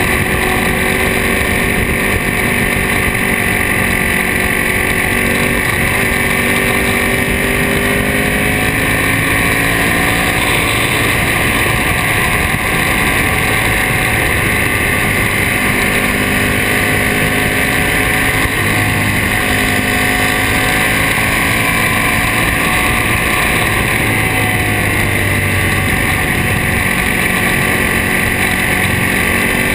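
2007 Ducati Monster S4RS's 998 cc L-twin engine with a Termignoni exhaust, running at speed, its pitch rising and falling with the throttle through a series of curves. Wind noise over the microphone.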